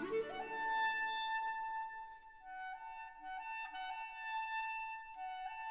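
Instrumental background music: a melody that slides up into a long held note near the start, then moves through shorter notes.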